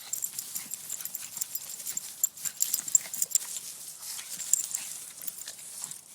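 A pug scampering after a dangled toy: rapid, irregular clicks and taps, like claws and paws scrabbling.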